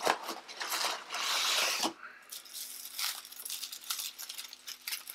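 Rustling and crinkling of cardboard packaging as a beer bottle in a soft cardboard mesh sleeve is pulled out of a delivery box, with a louder scraping rustle about a second in and scattered light knocks and clicks.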